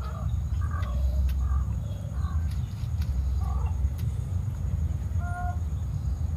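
Short clucking calls of domestic fowl, coming every second or so, with one clearer call a little past five seconds in, over a steady low rumble.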